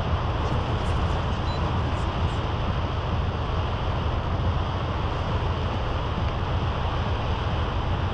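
Strong storm wind with rain, blowing through palm trees and buffeting the microphone in a steady, even rushing noise.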